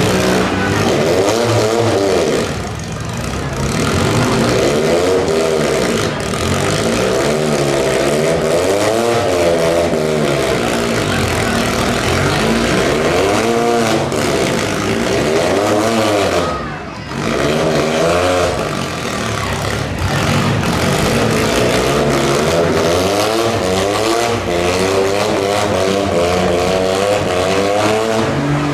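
Demolition-derby compact car engines revving hard, the pitch rising and falling over and over as the cars throttle up and back off. Occasional sharp bangs come through from impacts. The engines ease off briefly about two and a half seconds in and again near the middle.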